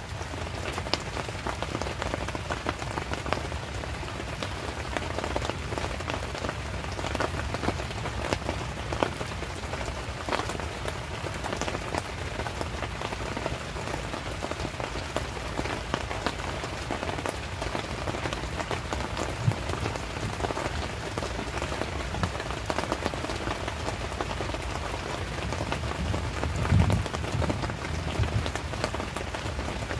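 Steady rain falling, with the sharp ticks of individual drops hitting close by. A couple of low thuds near the end.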